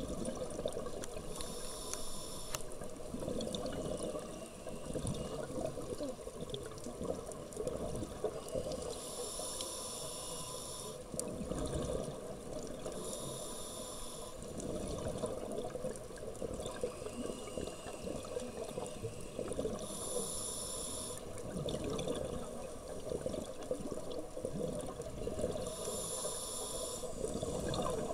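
Scuba regulator breathing underwater: a hissing inhalation comes about every four to seven seconds, with bubbling exhalations between, over a steady low rumble of water.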